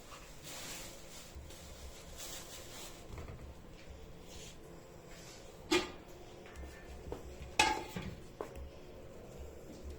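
Kitchenware being handled: soft rustling, then two sharp knocks about two seconds apart, followed by a few lighter clicks.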